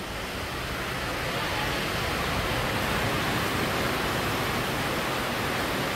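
Steady rushing hiss that swells slightly over the first couple of seconds, then holds level.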